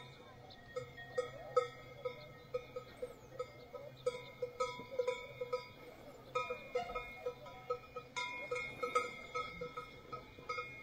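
Cowbells on cattle clanking in an irregular rhythm, a few strikes a second, each one ringing briefly.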